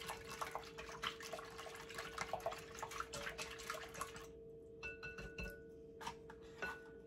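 Eggs and milk being beaten in a mixing bowl: rapid, wet clicking and sloshing that stops a little after four seconds in, followed by a few light clinks. A faint steady hum runs underneath.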